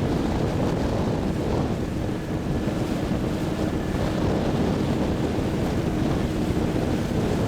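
Steady wind buffeting the microphone over the sound of open water, a dense low rumble that holds at an even level.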